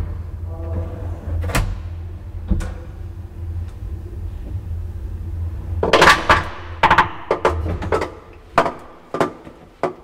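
Elevator car travelling with a steady low hum from its drive. About six seconds in comes a loud clatter, then a run of sharp clicks as the hum fades and the car stops.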